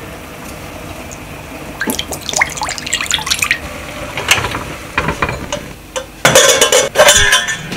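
Ponzu glugging out of a tipped bottle into a ceramic bowl in a quick run of gurgles. Near the end comes the loudest sound, a metal clatter and rattle as an aluminium pot with its lid is set down on a wooden slatted table.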